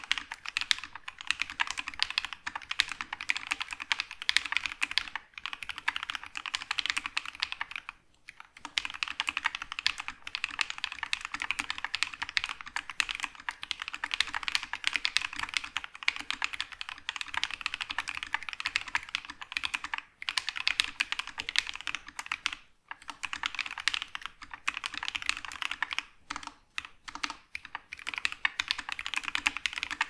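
Mechanical keyboard fitted with Alpaca linear switches being typed on quickly and without a break, a dense run of keystrokes with a few short pauses.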